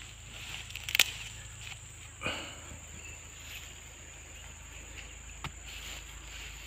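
A few sharp clicks and a brief rustle as freshly dug sweet potatoes are handled in loose soil, the loudest click about a second in, over a steady high insect trill.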